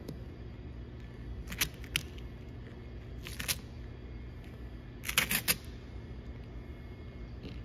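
Vinyl headlight sticker being peeled and pressed down by hand onto a race car's nose: a few short crinkling, rubbing sounds, the loudest a quick cluster about five seconds in, over a steady low shop hum.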